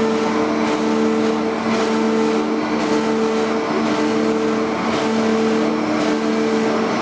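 KBM-200 log-rounding machine for thin logs running: a steady motor hum in several tones over a rushing noise that swells about once a second.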